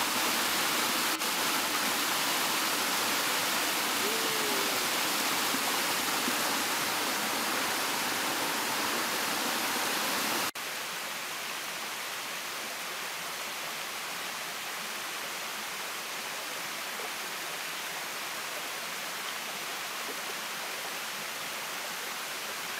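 Steady rush of water from a small waterfall pouring over rocks. About ten seconds in it cuts abruptly to the quieter, even flow of a shallow rocky stream.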